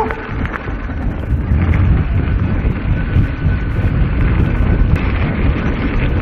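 Wind buffeting an action camera's microphone while a mountain bike rides fast over rough dirt singletrack, its tyres rumbling and the bike rattling with sharp clicks.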